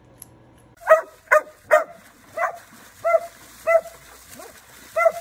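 A dog barking repeatedly: about eight short, sharp barks at an even pace, starting about a second in, the first three the loudest.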